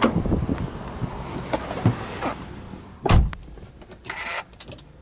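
Wind and handling noise on the microphone as someone climbs into the Subaru Impreza WRX STI, then a single heavy thump of the driver's door shutting about three seconds in, followed by light rustling and clicks inside the cabin.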